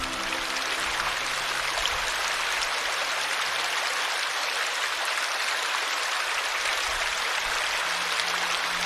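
Steady rushing of running water from a stream or small waterfall. Soft background music fades out in the first second and comes back in just before the end.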